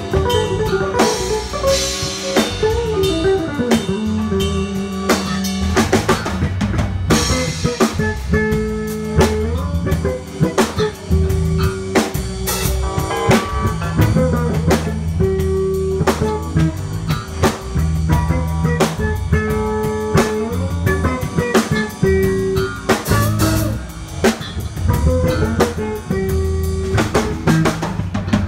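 Live soul band playing an instrumental passage without vocals: electric guitar and bass guitar carrying sustained melody and bass lines over a steady drum-kit beat with cymbal and rimshot hits.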